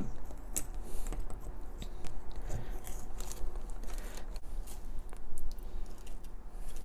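Small plastic toy shovel scraping and crunching into a dusty, chalky dig-surprise block: a run of irregular gritty scrapes and small ticks as the block is dug out.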